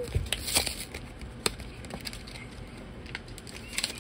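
Foil trading-card booster pack being handled, giving a few scattered crinkles and crackles.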